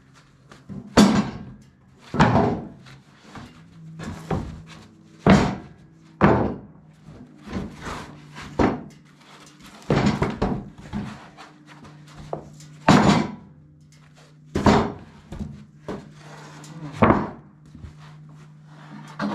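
Freshly sawn boards being handled and set down on a pile, about a dozen loud wooden thunks a second or two apart, over a low steady hum.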